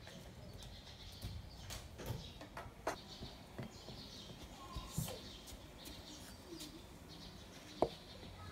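Faint bird chirping with a few sharp clicks, the loudest near the end, over a low background hum.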